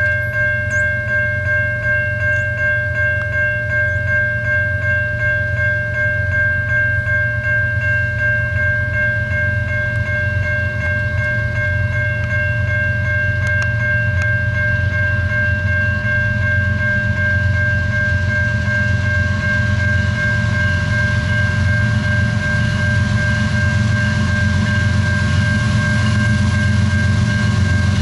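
A grade-crossing warning bell rings steadily. Under it runs the low rumble of an approaching CN GE ES44AC freight locomotive, which grows louder in the second half as the train nears the crossing.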